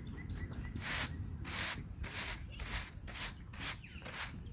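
Thick-bristle broom brushing loose dirt out of the worn ends of a clay cricket pitch, in brisk strokes about two a second, starting about a second in.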